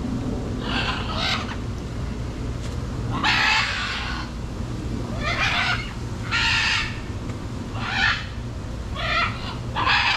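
Macaws squawking: about seven harsh, rasping screeches at irregular intervals, over a steady low rumble.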